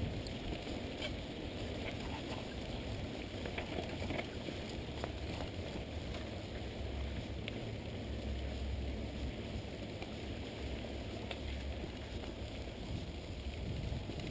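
Mountain bike rolling along a dirt track: a steady rumble of the tyres and wind buffeting the microphone, with a few small rattling clicks from the bike.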